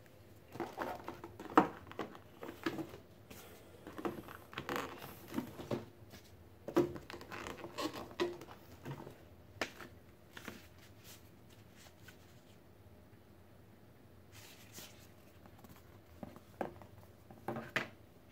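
Board-game components being handled in a cardboard box: plastic wrapping crinkling, with light clicks and taps of pieces and cardboard. The handling comes in irregular spells, busiest in the first half, quieter for a few seconds, then a few more crinkles near the end.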